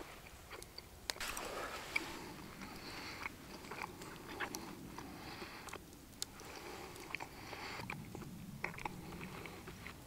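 A person chewing mouthfuls of seared sirloin steak close to the microphone, with a few sharp clicks.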